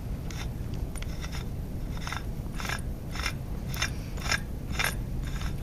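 AndyMark Super Shifter gearbox running under its electric motor: a steady low hum with regular clicking from the gears, about two clicks a second, louder from about two seconds in.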